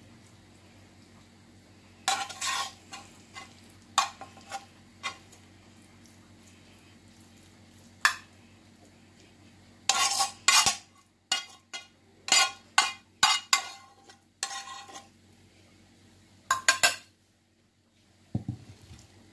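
Metal spoon scraping and clinking against a frying pan as cooked minced meat is scraped out of it, in short irregular bursts with pauses between. A faint low steady hum lies underneath.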